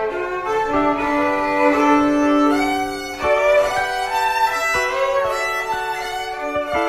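Violin music: a bowed melody of held notes, some sliding from one pitch to the next, with a few faint knocks underneath.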